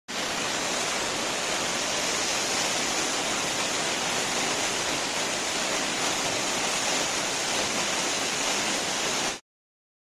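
Bärglistüber waterfall plunging into its pool: a steady rush of falling water that cuts off suddenly near the end.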